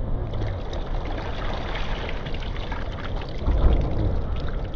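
Water sloshing and splashing around a person wading deep in a river, over a steady low rumble, with a louder surge of water about three and a half seconds in.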